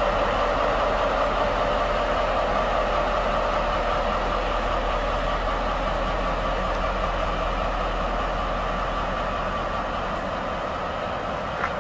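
Two coupled SNCF BB 75000 diesel freight locomotives running slowly past and pulling away, a steady diesel engine drone that gradually fades. A brief high squeak comes near the end.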